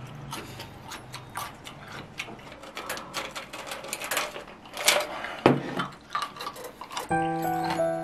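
Gulps and small clicks and knocks of drinking from a plastic tumbler and handling it on a table. Background music starts about seven seconds in.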